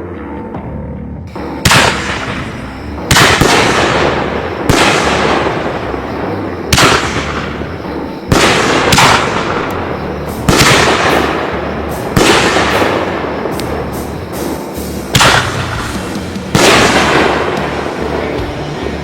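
Aerial artillery shells bursting one after another, about ten loud bangs roughly one to two seconds apart, each with a noisy tail that fades away. Music plays underneath.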